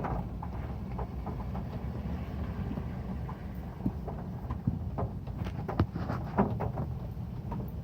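Heavy rain drumming on a metal roof: a steady low rumble with irregular sharp taps of single drops striking the metal.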